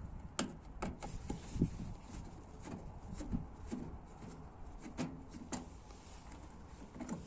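Scattered light clicks and knocks of a screwdriver and hands at work on the casing of an Indesit washing machine, unscrewing its parts, at an irregular pace.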